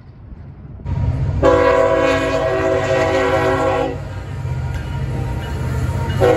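CSX diesel freight locomotive's multi-chime air horn blowing one long blast over the low rumble of the passing locomotives, with a second blast starting near the end.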